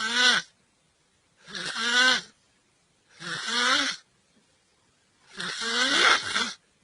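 A person snoring: four snores in quick succession, each under a second long, about every second and a half to two seconds.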